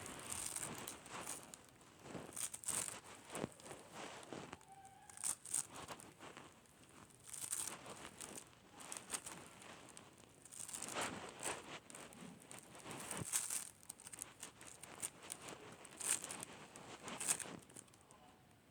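Slime being squeezed and stretched by hand, giving irregular bursts of crackling and popping clicks.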